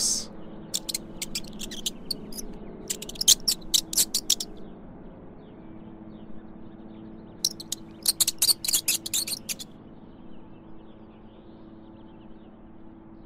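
Mouse squeaking: three runs of quick, very high-pitched squeaks, each lasting one to two seconds, over a faint steady hum.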